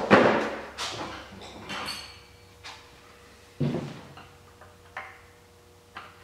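Hand tools and metal parts being handled: a series of sharp knocks and clanks, the loudest at the start and another strong one about three and a half seconds in. One knock has a brief metallic ring. Lighter clicks follow as work starts on the ATV's plastic headlight pod.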